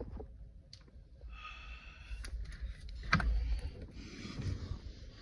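A door being opened by its knob, with soft rustling and shuffling and a sharp latch click about three seconds in.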